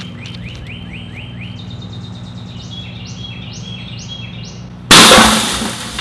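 Microwave oven humming as it runs with 12-gauge birdshot shotgun shells inside; about five seconds in, a shell bursts with a sudden loud bang that dies away over about a second, scattering its birdshot.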